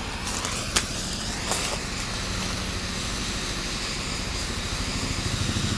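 Handheld propane torch running, its flame giving a steady hiss, with a light click about a second in.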